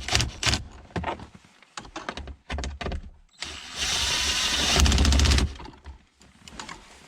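Several knocks and clanks of tools and parts, then an impact gun running for about two seconds near the middle, driving a bolt.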